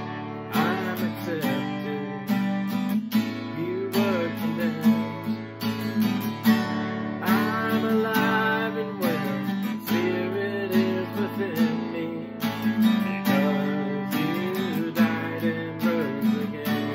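A man singing a worship song while strumming an acoustic guitar with a steady strumming rhythm.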